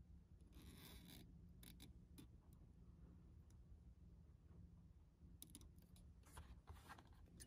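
Near silence: a faint low hum with a few soft scratchy rustles of thread being wound and pulled around the head of a hand-tied fishing fly, about half a second in and again near the end.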